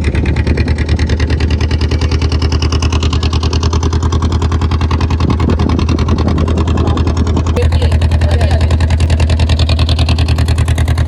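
Motorboat engine running steadily with a fast, even low throb.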